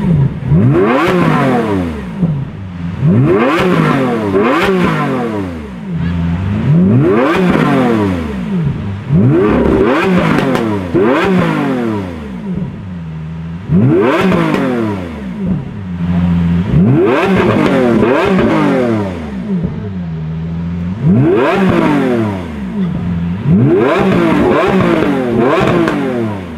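Sports car engine revved over and over, each rev climbing in pitch and dropping back, about one every two seconds.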